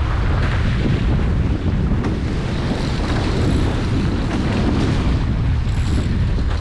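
Wind rumbling steadily on the camera microphone aboard a Prindle 19 catamaran under sail, with the rush of water along the hulls.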